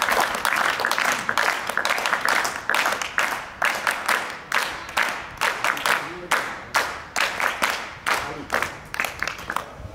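Small group of people applauding by clapping hands. It is dense at first, then thins into separate claps about two or three a second, growing fainter near the end.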